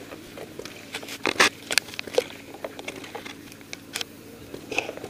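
Irregular clicks and scuffs, most likely footsteps on dry dirt with the rattle of paintball gear, with a louder cluster about a second and a half in.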